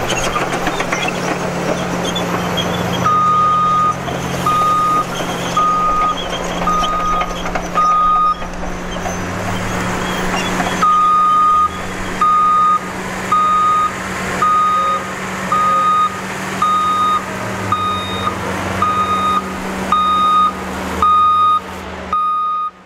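Heavy diesel engines of a Cat 5130B mining excavator and a Cat 777 haul truck running steadily, with a reversing alarm beeping about once a second. The beeping starts about three seconds in, stops for a few seconds in the middle, then starts again.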